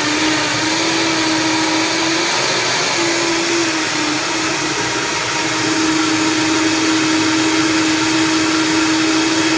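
Vitamix blender motor running at high speed, puréeing spinach and grapes into a green smoothie. A steady whine whose pitch wavers about two to five seconds in as the contents churn, then holds steady.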